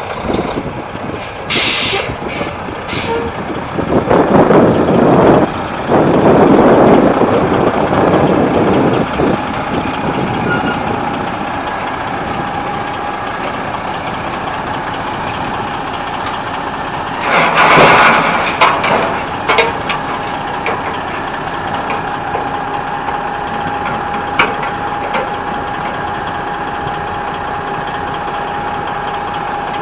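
Peterbilt 379 log truck's Detroit Series 60 diesel idling steadily, with several loud hisses of compressed air from its air brake system: a long one early on and another a little past halfway.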